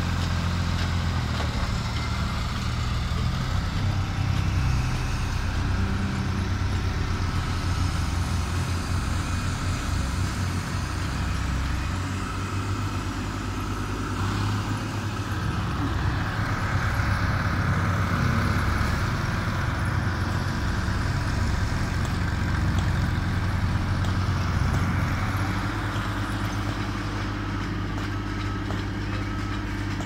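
Engines of the tandem asphalt road rollers running with a steady low drone.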